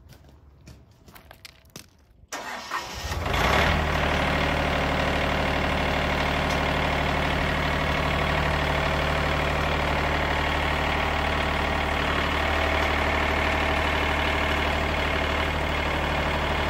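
Wood-Mizer sawmill engine starting about two seconds in, then running at a steady speed with no load on it.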